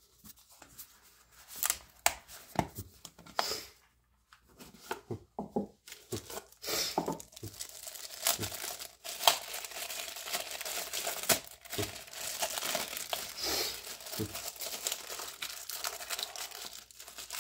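Plastic packaging crinkling and tearing as a small clear acrylic enclosure is unwrapped by hand. Scattered rustles and clicks at first, then dense, steady crackling from about a third of the way in.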